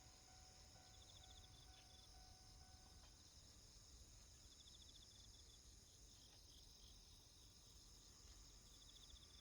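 Faint chorus of insects: a steady high-pitched trilling, with short runs of pulsed chirps about a second in, around five seconds in and near the end. A faint steady tone underneath stops about three seconds in.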